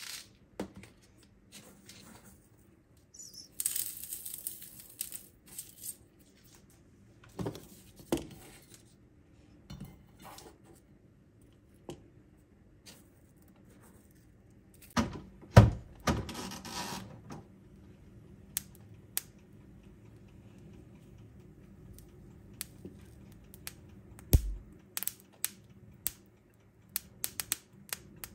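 Small objects being handled in a small room: scattered clicks and knocks with bouts of rustling, and one heavier thump about halfway through.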